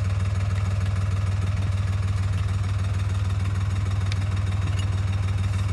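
A motor or engine running steadily: a constant low hum with a fast, even pulse that does not change.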